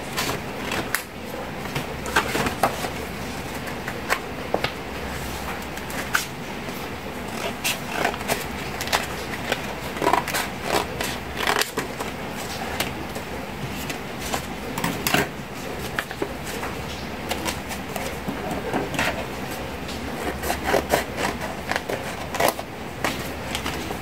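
Irregular clicks, taps and paper rustles as coloured paper and plastic straws are handled and worked, over a low steady hum.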